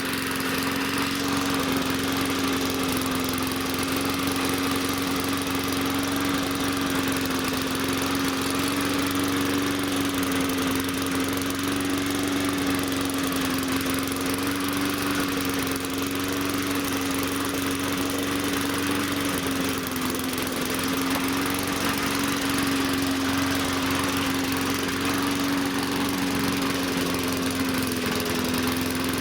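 Small primer-equipped engine running steadily at one speed, its pitch wavering slightly, which the owner takes for rough running from worn piston rings.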